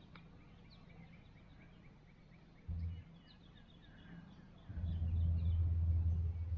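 Small birds chirping faintly in the background, with a deep low rumble twice: briefly about three seconds in, then longer and louder from about five seconds in.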